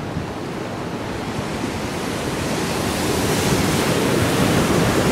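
Wind rushing over a phone's microphone, mixed with the wash of ocean surf, a steady roar that grows louder through the second half.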